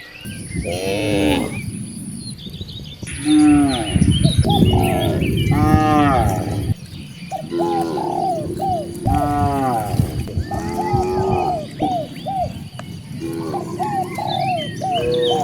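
Cattle mooing repeatedly, several calls overlapping one another from more than one animal.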